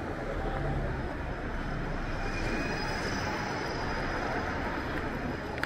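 Steady city street traffic noise with a low rumble, and a faint high whine about halfway through.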